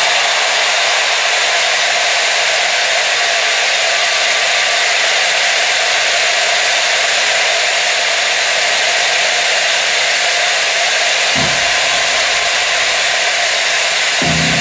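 Thousands of Mississippi State fans ringing cowbells at once: a dense, steady metallic clatter. A low rumble joins near the end.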